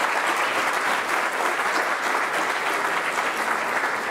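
Audience applauding with steady, dense clapping at the end of a lecture.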